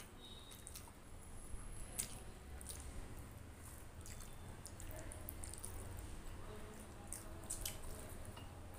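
Bare fingers squishing and mixing cooked rice with curry on a steel plate, with wet chewing and many small, sharp clicks.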